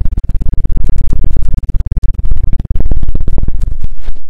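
Loud, rapid scratching and knocking on an ASMR microphone: a dense run of many quick strokes a second, heavy and close.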